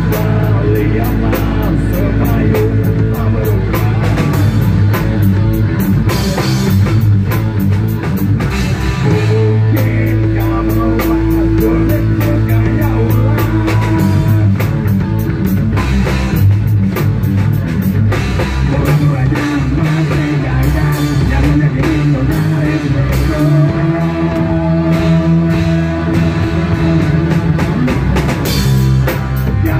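Live rock band playing loudly: drum kit, electric guitar and bass guitar, with a singer on vocals.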